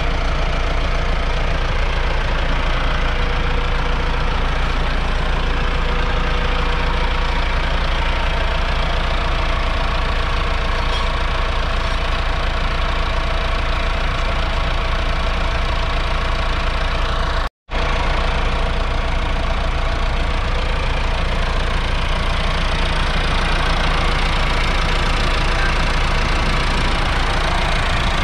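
Massey Ferguson 4235 tractor's 4.2-litre four-cylinder diesel engine idling steadily, standing still. The sound breaks off for an instant about two-thirds of the way through, then runs on unchanged.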